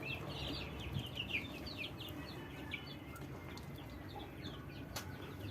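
A flock of young poultry chicks peeping: many short, high peeps, busiest in the first couple of seconds and then thinning out.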